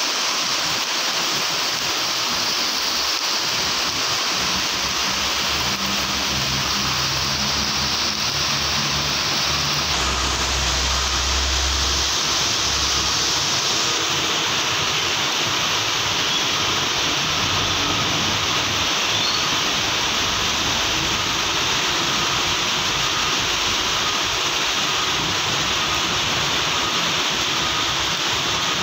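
Heavy rain pouring onto a wet road, a steady loud hiss. Partway through, the low hum of passing vehicle engines runs beneath it.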